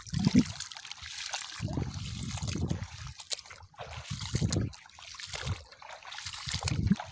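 Water sloshing and trickling in uneven surges about once a second, with a steady hiss above it.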